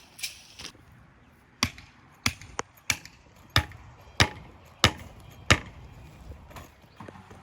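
A series of seven sharp knocks at a steady pace, about one every two-thirds of a second, each dying away quickly.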